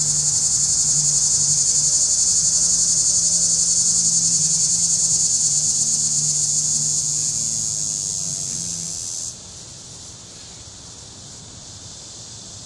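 A cicada singing: a loud, high-pitched, steady buzz with a fast pulse, which swells, then fades a little and cuts off abruptly about nine seconds in.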